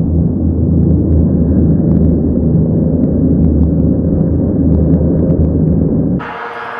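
Racing boat engine running hard, a loud steady low rumble. About six seconds in it cuts off abruptly to a quieter, higher engine sound with a steady whine.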